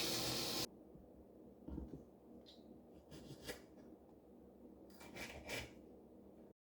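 A loud steady hiss cuts off abruptly under a second in. After it come faint rubbing and a few light taps and clicks of small objects being handled.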